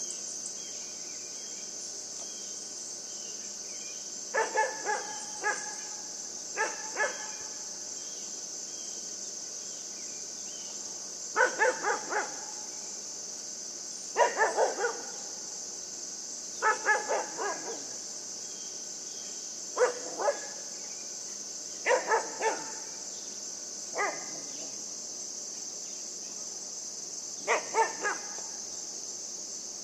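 Great Pyrenees–Siberian husky mix puppy barking at a deer, in short bunches of two to four barks every few seconds.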